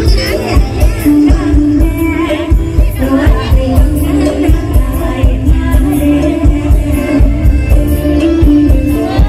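Live mor lam band playing an up-tempo Isan song with a steady, heavy drum beat, with singing over it.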